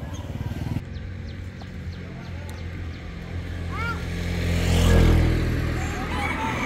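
A small engine running steadily, growing louder to its peak about five seconds in and then easing off. A few short high chirps sound about four seconds in.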